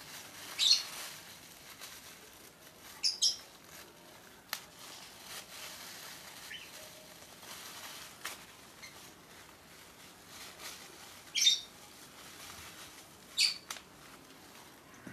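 Plastic shopping bag crinkling as it is handled and cut, a faint rustle broken by about six short, sharp crackles.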